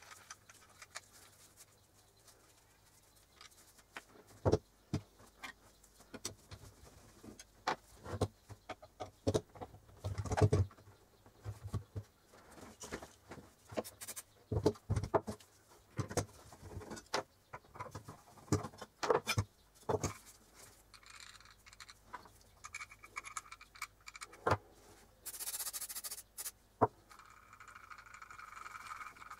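Scattered clicks, clinks and knocks of small metal parts and tools as a rusty old geared hand crank drill is handled and taken apart, with a brief spray hiss near the end.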